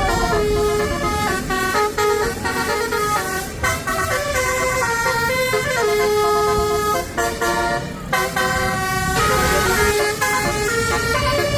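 Bus telolet horn, a set of musical air horns, playing a stepping multi-note tune over the noise of the moving bus.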